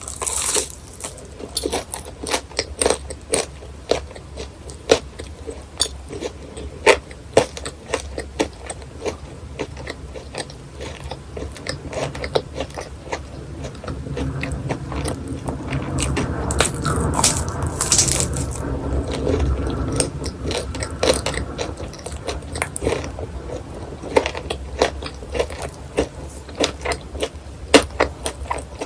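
Crisp fried churros being bitten and chewed close to the microphone, with many sharp crunches throughout. There is a denser, steadier stretch of chewing and scraping in the middle.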